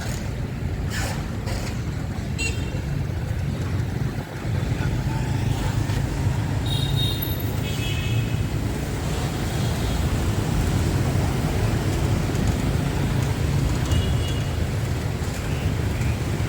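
Steady city street traffic running past, with several short vehicle horn toots: one about three seconds in, two close together around seven to eight seconds, and another near the end.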